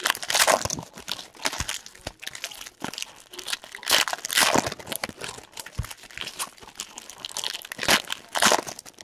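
Foil trading-card pack wrappers crinkling and crumpling as they are handled. There are louder bursts near the start, in the middle and near the end, with small crackles and clicks between them.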